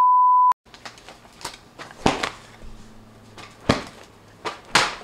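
A steady beep tone that cuts off abruptly about half a second in. It is followed by quiet room sound with a faint hum and a scattering of sharp knocks and taps, the loudest about two seconds in and again near the end.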